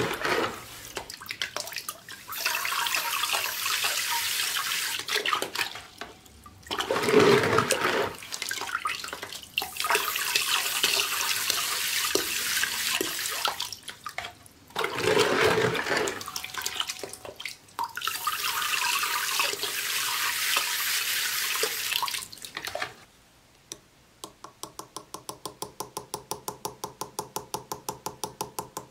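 Water splashing and sloshing in a plastic bucket as a small silver piece is scrubbed by hand, in several long bursts with short pauses between. Near the end it gives way to quick, even tapping of a chasing hammer on a chasing tool, about five taps a second, as the piece is worked in chaser's pitch.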